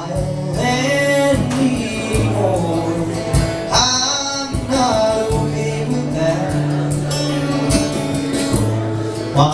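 Live music: a man singing a song over instrumental accompaniment, with sustained low notes underneath.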